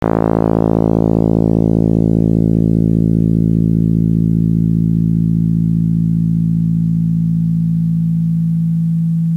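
Synthesized tone from a double-sideband discrete summation formula: a 220 Hz carrier with partials spaced every 55 Hz, including a 55 Hz partial from the lower sidebands. It starts bright and bassy, and its upper partials fade away over the seconds as it converges toward a plain 220 Hz carrier tone.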